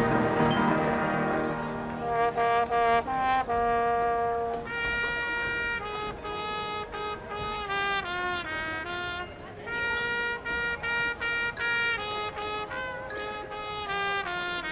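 High school marching band's brass section playing: a loud held chord fades over the first couple of seconds, then the horns play short, punchy notes with brief gaps between them.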